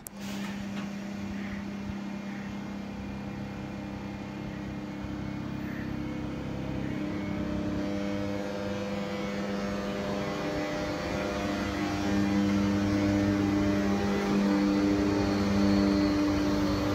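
Czech Railways class 362 electric locomotive moving slowly past, its traction equipment and blowers giving a steady hum of several held tones over a low rumble, growing louder as it comes near.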